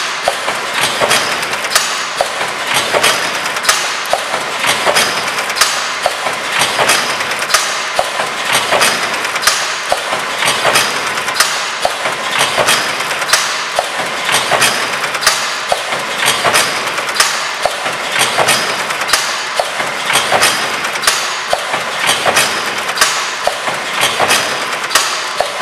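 Vertical multi-lane sachet packing machine running: a steady mechanical whirr with regular clicks and knocks from its moving parts, and a stronger knock about every two seconds.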